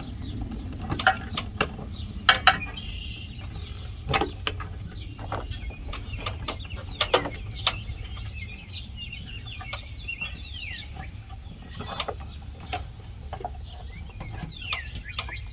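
Scattered sharp clicks and knocks from wires being pushed into an electrical box and a metal light-mounting plate being handled, over a low wind rumble on the microphone. A few short bird chirps come now and then.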